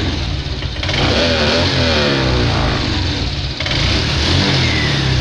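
Honda Vario 125 scooter's single-cylinder engine running and being revved, its pitch rising and falling about a second in, with the rough, growling 'ngorok' noise that the mechanic traces to the air filter box rather than the CVT.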